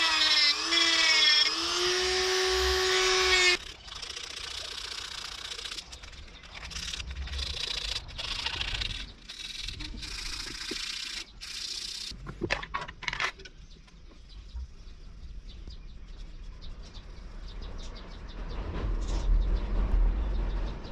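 Small handheld rotary tool with a long thin bit whining as it bores into a wooden knife handle, its pitch dipping and rising under load, then cutting off about three and a half seconds in. After it comes a scratchy rasping broken by short pauses, a few knocks, and then faint handling noise.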